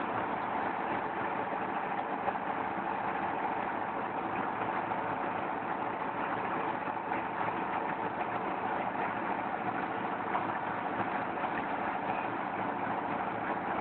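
Brick moulding machine running steadily, its engine droning at an even pace.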